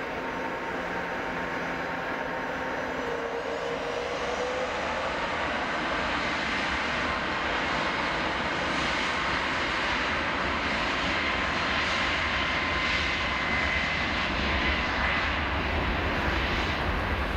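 Boeing 737 MAX 8's CFM LEAP-1B turbofan engines at takeoff power during the takeoff roll: a steady jet noise that grows gradually louder. A faint high whine comes in toward the later part, and the low rumble strengthens near the end.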